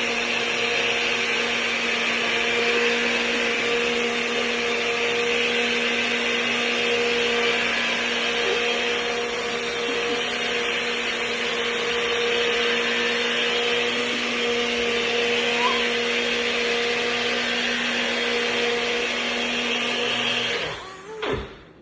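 Electric blender running steadily, blending a turmeric, ginger and lemon-water mix; it is switched off near the end.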